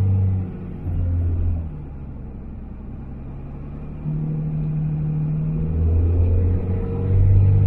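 Cab-interior drone of a second-generation Dodge Ram's 24-valve Cummins turbo-diesel pulling a dump trailer. The engine note falls away briefly twice in the first couple of seconds, stays low for about two seconds, then comes back in around four seconds in and builds louder toward the end.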